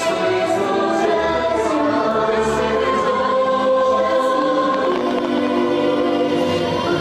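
Fireworks show soundtrack: a choir singing long held notes over music.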